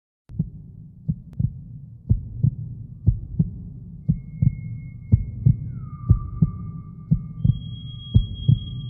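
Heartbeat sound effect: pairs of low thumps about once a second over a low rumble. Thin, steady high tones come in about halfway through, one of them sliding down as it enters.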